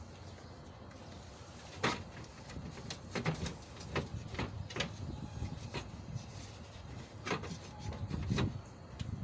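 Irregular clicks and knocks of hand tools, pliers and pincers, working at the bolts of a car's engine cooling fan. The loudest knock comes about two seconds in.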